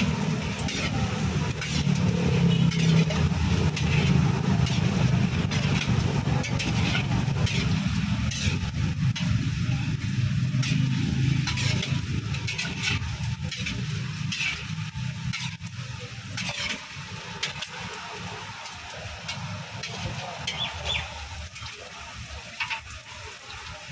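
Tofu fritters deep-frying in a wok of oil, sizzling with many small crackles, over the steady low rumble of a high-pressure gas burner. The sound slowly gets quieter through the second half.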